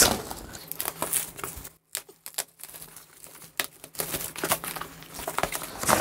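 Clear plastic shrink wrap being torn and peeled off a cardboard box, crinkling and crackling irregularly, with a brief lull about two seconds in.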